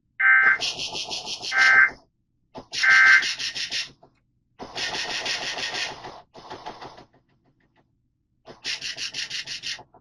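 Emergency Alert System SAME digital data bursts: four harsh, buzzing screeches, each one to two and a half seconds long, separated by short silences. They are the coded data that opens and closes an alert test.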